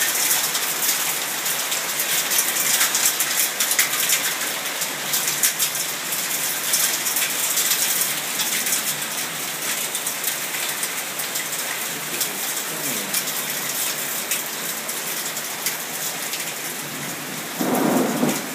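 Heavy thunderstorm rain pouring and splashing onto nearby surfaces, a dense steady hiss with many sharp drop ticks. A short louder sound breaks in near the end.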